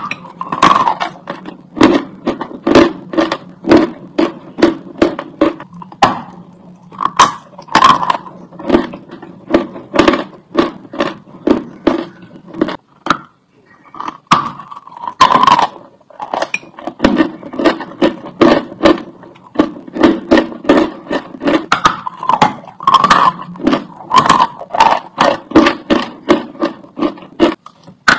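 Close-up crunching as a person bites into and chews dry chalk: a fast run of sharp, crisp crunches in a chewing rhythm, with a brief lull a little before halfway.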